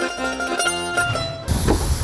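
Background music with plucked-string instruments, cut off suddenly about one and a half seconds in by live sound: a low rumble and the start of a voice.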